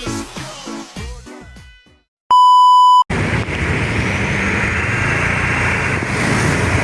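Intro music fades out, then a single loud, pure electronic beep of under a second cuts in and stops sharply. After it comes steady roadside traffic noise from passing buses and other vehicles.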